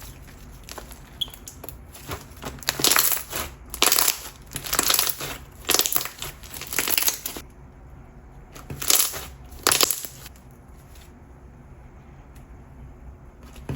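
Clear water jelly slime with pearls being squeezed and pressed by hand, giving a string of crackly, wet pops, about eight of them, that die down near the end. The slime is overactivated, so it is stiff and not watery.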